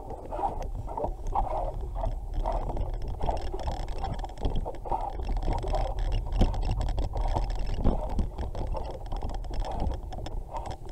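Bicycle being ridden over a bumpy, muddy dirt track, heard through a camera mounted on the bike: a steady low rumble with many small rattles and knocks from the bike jolting over the ground.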